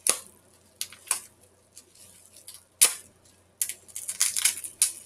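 Packaging and a boxed item being handled: several sharp clicks and taps, the loudest near the three-second mark, then about a second of dense crinkling rustle near the end.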